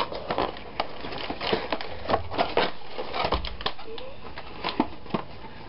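Cardboard box packaging being handled and pulled apart: a run of irregular clicks, scrapes and crackles of stiff cardboard flaps and inserts.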